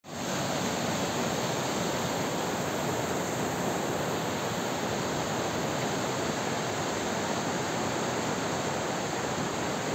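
Fast mountain river rushing over rocks, a steady, even noise of white water.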